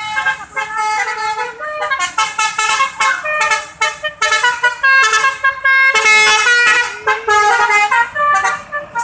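A bus's telolet basuri musical horn playing a tune: a quick run of multi-tone horn notes jumping from pitch to pitch, loudest around the middle.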